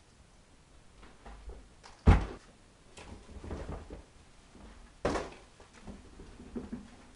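A rubber wellington boot stamping on a floor. There are two heavy thuds about three seconds apart, the first the loudest, with lighter thumps and scuffs between them.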